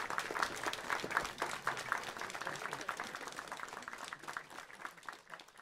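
Audience clapping and applauding, the applause slowly dying away toward the end.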